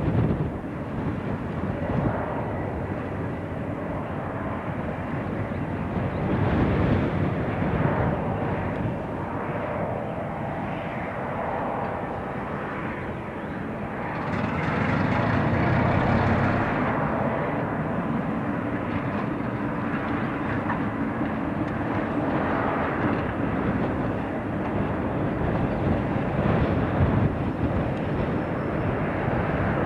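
British Rail Class 08 diesel shunter's English Electric six-cylinder engine running as the locomotive moves slowly through the sidings, a steady diesel drone that swells about halfway through.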